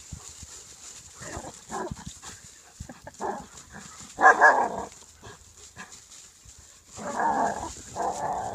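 A dog barking and growling in a string of short bursts, the loudest about halfway through, while it jumps up against a pine trunk, with light scratchy clicks of claws and teeth on the bark between the barks.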